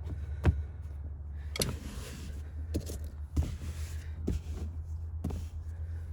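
Molded floor liner being pressed and shifted into place on a truck's floor: about six sharp knocks and some rustling as it is pushed down, over a steady low hum.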